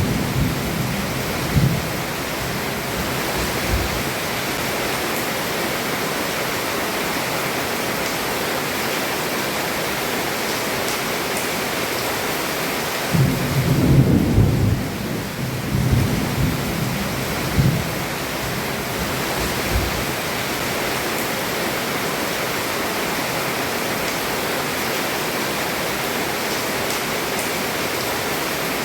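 Heavy rain pouring steadily onto a roof, a dense even hiss. Thunder rumbles low at the start and again about halfway through, rolling for several seconds.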